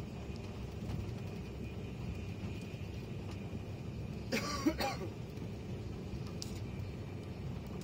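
Steady low rumble of a TGV Réseau high-speed train running, heard inside the passenger cabin. About halfway through, a person makes one short vocal sound, about half a second long.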